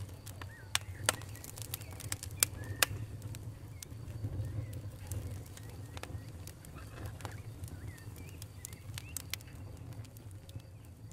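Hands squeezing and crumbling purple kinetic sand, a gritty crunching with sharp crackles, the loudest several within the first three seconds, over a steady low hum.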